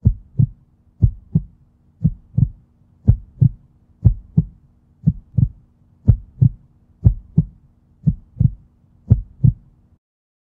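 Heartbeat sound effect: paired low thumps, a lub-dub about once a second, over a faint steady hum. It stops about ten seconds in.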